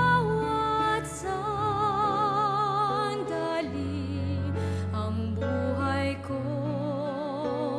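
Slow, tender background music: long held melody notes with vibrato over sustained low bass notes.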